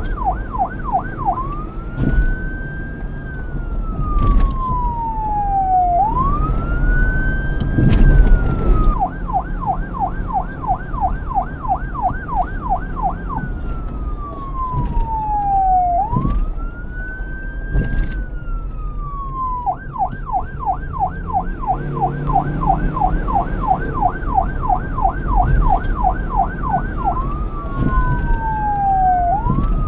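Police car siren switching back and forth between a fast yelp, about three or four warbles a second, and a slow wail that rises and then falls over several seconds. It changes mode about every four to six seconds, over a low rumble of engine and traffic.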